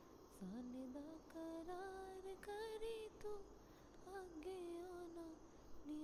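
A high voice singing a slow, wordless melody, its pitch sliding up from a low note about half a second in and then gliding between held notes.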